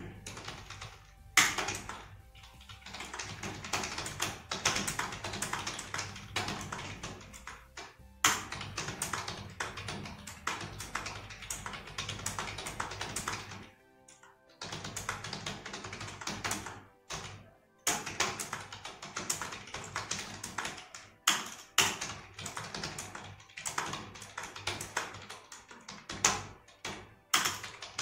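Rapid, continuous typing on a Dell KM3322W wireless membrane keyboard: a fast run of key clicks with a couple of short pauses, and music faintly underneath.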